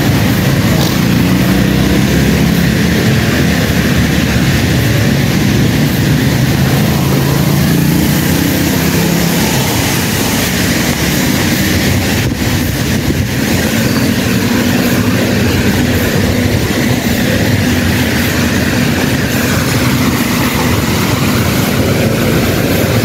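Heavy rain and traffic on a wet city street: a steady, loud rush of rain with the low rumble of engines and tyres on the wet road beneath it.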